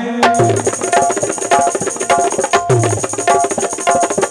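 Live stage band music: hand drums playing a fast, driving rhythm with a repeated melodic phrase over it. It strikes up just after a sung line ends.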